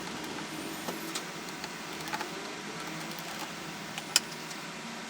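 Small clicks and taps of hand tools and screws against a MacBook Pro's case and parts as the laptop is taken apart, with one sharp click about four seconds in, over a steady background hiss.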